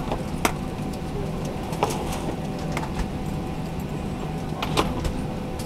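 Steady drone of an airliner cabin, with three sharp clicks or knocks spread through it.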